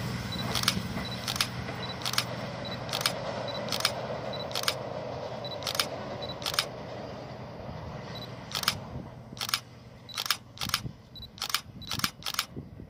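Diesel multiple unit train running away into the distance, its low engine and wheel sound fading steadily. Over it comes a series of sharp, high clicks, spaced out at first and coming quicker near the end.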